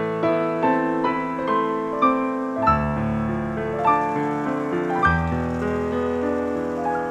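Background piano music: a gentle melody of single notes over held chords, with a deeper bass note coming in about two and a half seconds in and again about five seconds in.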